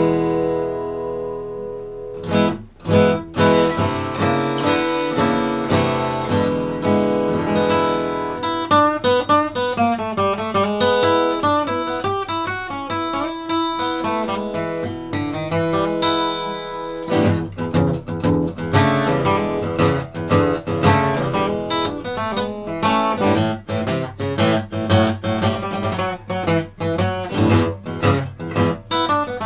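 Bedell Earthsong Orchestra acoustic guitar played solo. It opens on a chord left ringing for a couple of seconds, moves into a passage of single notes and chords, and a little past halfway turns to busier rhythmic playing with sharp, quick attacks.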